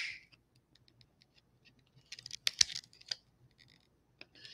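Small cutting pliers snipping at the edge of a PSA graded-card slab: faint ticks, then a cluster of crisp plastic clicks and crunches about two seconds in, with one sharp snap as a bit of the hard plastic breaks off.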